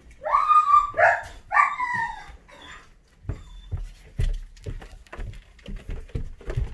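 Three high, rising-and-falling yelps from a small dog in the first two seconds, then quick footsteps thumping up carpeted stairs.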